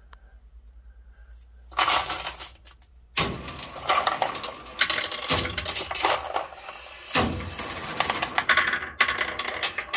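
Steel slingshot ammo balls rattling and clattering on bare metal in a cabinet catch box, a brief clatter about two seconds in, then a long dense run of clinks and clicks like a pinball machine.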